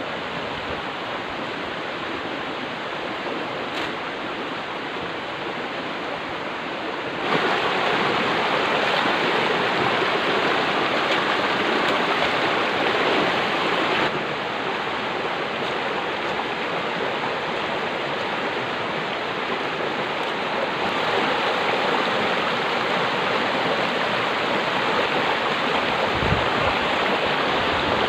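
Flowing river water, a steady rushing that jumps louder about seven seconds in and shifts level twice more.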